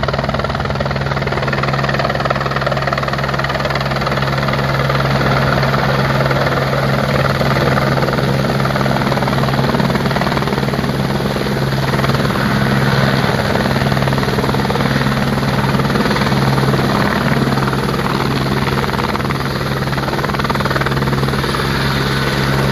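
Helicopter coming in low over a helipad, hovering and settling onto its skids: loud, continuous rotor beat with a fast, even pulse over a steady engine drone.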